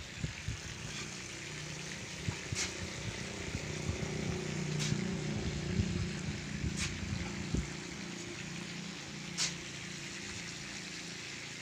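Outdoor noise on a handheld phone microphone: low rumbling buffets and hiss, like wind and handling, with four faint sharp ticks about two seconds apart.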